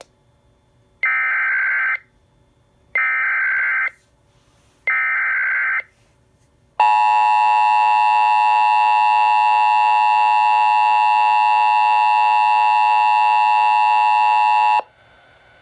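Emergency Alert System header from an ENDEC relay: three one-second bursts of screeching SAME data, then a steady alert tone held for about eight seconds that cuts off sharply.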